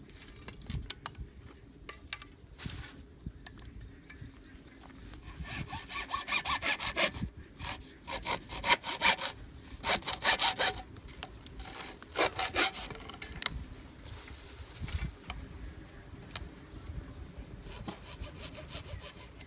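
Hacksaw cutting through a plastic pipe, with quick back-and-forth strokes in several bursts through the middle. Fainter knocks of the pipe and tools being handled come before and after.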